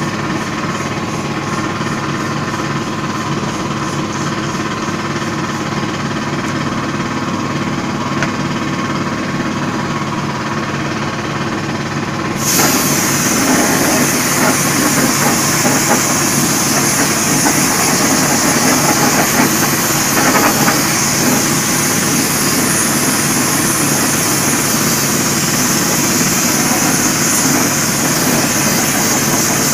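A motor runs with a steady drone, like a workshop compressor. About twelve seconds in, a loud steady hiss suddenly starts on top of it: pressurized spray from the hand-held hose gun on the chromed rim.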